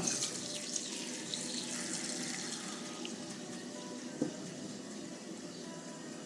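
Water running into a pot for boiling. There is a clunk at the start and a short knock about four seconds in.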